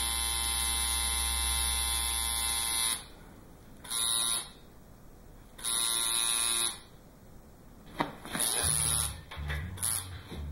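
Coil tattoo machine buzzing steadily, cutting off about three seconds in, then running again in two short bursts. Near the end a click and low, uneven sounds follow.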